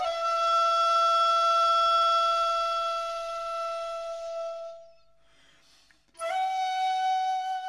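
Background music played on Tibetan singing bowls: one long ringing tone fades out about five seconds in, there is a moment of near silence, then a new, slightly higher tone sounds about six seconds in and holds.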